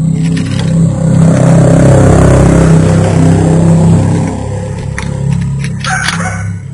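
A vehicle engine running loudly, swelling about a second in and easing back after about four seconds, with a few sharp clicks near the end.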